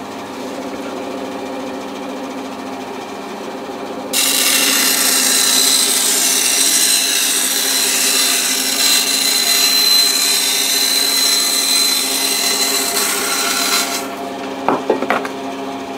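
Lumberjack BS228 bench-top band saw running with a steady motor hum. About four seconds in, the blade starts cutting a strip off a piece of builder's board with a loud rasping hiss, and it whizzes through for about ten seconds. The saw then runs on unloaded, with a few light knocks near the end.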